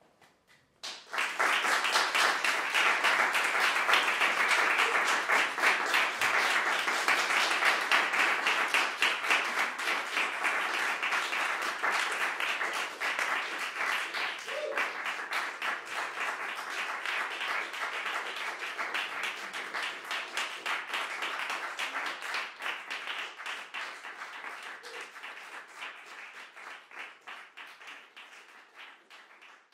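Small audience applauding: the clapping starts suddenly about a second in, then slowly thins out and fades near the end.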